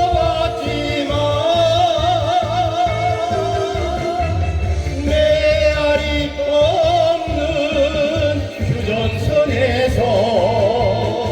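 A singer performing a Korean song live, the voice wavering with vibrato over backing music with a steady low beat.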